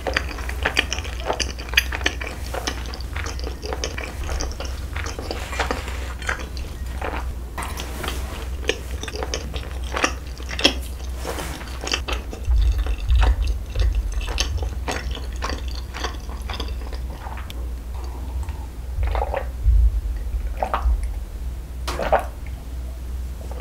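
Close-miked chewing and wet mouth clicks, followed in the second half by sips and swallows of water from a glass.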